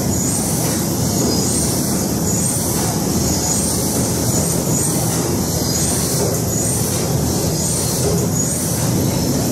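The paddle steamer Lötschberg's steam engine running, its cranks and rods turning over with a steady mechanical clatter and a soft high tick that repeats a little more than once a second.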